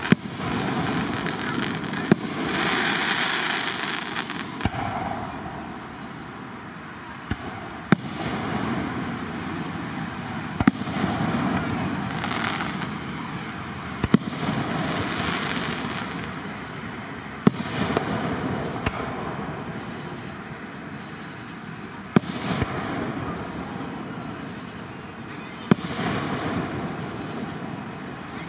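Aerial fireworks shells bursting in a public display, with about nine sharp bangs a few seconds apart. Each bang is followed by a hiss that swells and fades.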